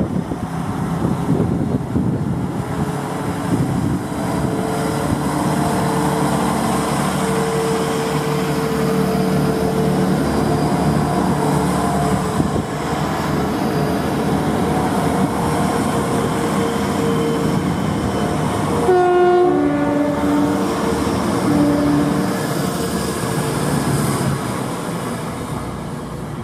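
Passenger train running through the station, with steady running noise and a held tone. About nineteen seconds in it sounds a two-tone horn, a high note dropping to a low one, with a short low note soon after, as a warning to track workers on the line. The train fades toward the end.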